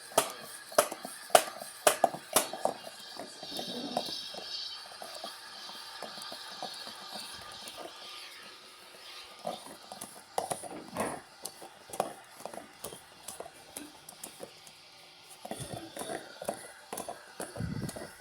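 LG washing machine running a heavy-load wash, with irregular knocks and clicks, denser near the end.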